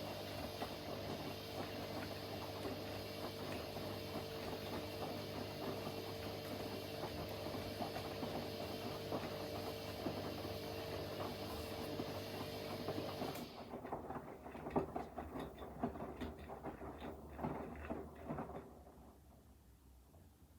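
Front-loading washing machine running, a steady motor whine with the drum turning. About two-thirds of the way through the motor cuts off, and irregular clunks and rattles of the drum and laundry follow for a few seconds before it goes quiet.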